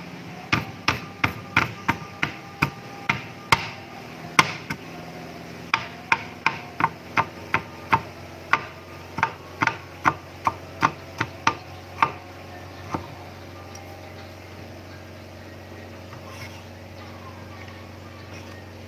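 Cleaver chopping a young coconut frond stalk into small pieces on a wooden cutting board: a steady run of knocks, about two to three a second, with a short pause about five seconds in, stopping about thirteen seconds in.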